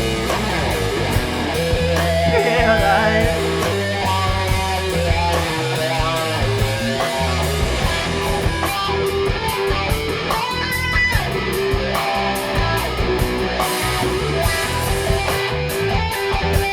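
Rock trio playing an instrumental passage: an electric guitar plays lead lines with bent notes over bass guitar and a drum kit keeping a steady beat.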